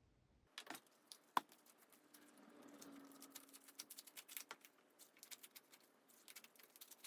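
Slime being kneaded and pressed by hand: faint, irregular sticky clicks and pops, with one sharper click about a second and a half in.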